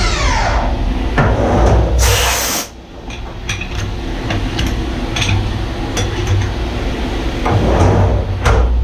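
Haas Mini Mill spindle whining down in pitch as it stops after the cut, then a short hiss about two seconds in as the chips are blown off the Delrin part. After that, a string of sharp clicks and knocks from the machine over its steady low hum.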